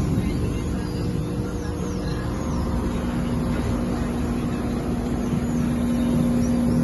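Diesel engine of a Mercedes-Benz Atego 2425 truck running at steady revs, a constant hum that settles onto one steady pitch a couple of seconds in.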